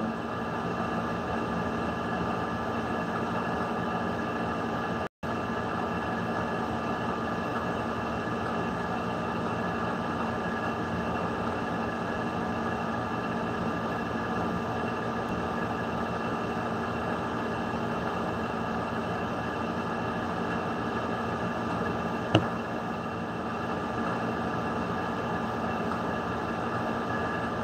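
A steady machine hum with several held tones, broken by a momentary cut-out about five seconds in and a single sharp click about three-quarters of the way through.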